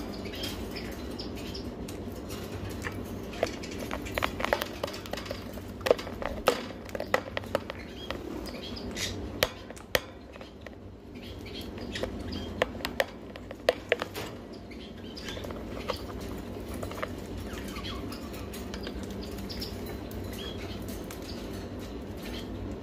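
Ringneck parakeet's beak tapping and nibbling at a phone right against its microphone: a run of sharp clicks and scrapes, thickest and loudest through the middle stretch, then thinning out.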